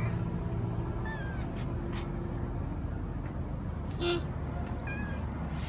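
Grey tabby cat meowing: three short meows, about a second in, about four seconds in and about five seconds in.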